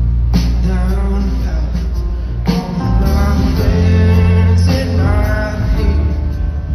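Live rock band playing a slow song: electric guitars, drums and keyboards with strong bass, and a male voice singing. Heard from within the audience in a large hall.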